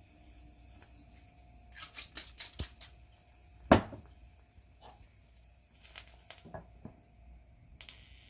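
Kitchen handling around a pot on the stove: a quick run of light clicks and clinks, then one sharp, much louder knock a little under four seconds in, and more light knocks as a glass pot lid is set on.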